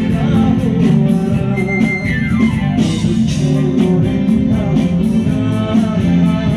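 Live band music with guitar to the fore, loud and continuous, with a falling slide in pitch about two seconds in.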